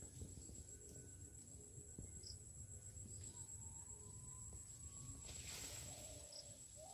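Faint outdoor ambience: a steady high insect-like drone over a low rumble, with a faint held note about three seconds in and a brief hiss about five and a half seconds in.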